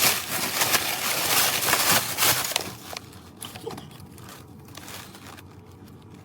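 Plastic packaging crinkling and rustling as a roll of bagged safety eyes is handled and opened, dense for the first two and a half seconds. After that it drops to a few faint clicks and rustles.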